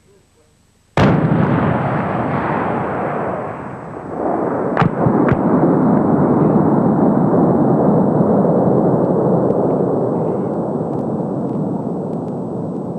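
Bomb-disposal demolition charge detonated: a sudden loud blast about a second in, followed by a long, dense rumble. The rumble dips briefly, then swells again about four seconds in, with a couple of sharp cracks, and carries on to the end.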